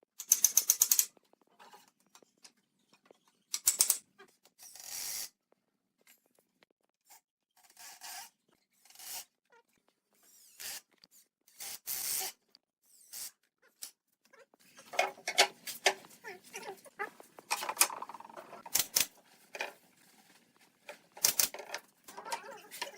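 Hand work on wood: a series of short, separate rasping strokes, then a denser run of clattering and knocks from about fifteen seconds in.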